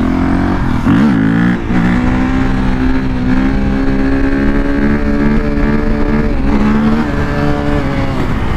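KTM 450 EXC supermoto's single-cylinder four-stroke engine pulling hard while the bike is ridden. The revs dip and climb back sharply about a second in, then hold fairly steady with a slight drop near the end, as the front wheel is lifted into a wheelie. Wind rush on the helmet-mounted microphone runs underneath.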